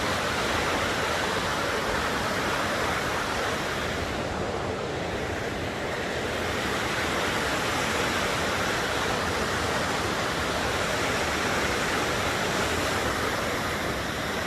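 River rapids rushing: a steady, even wash of water noise.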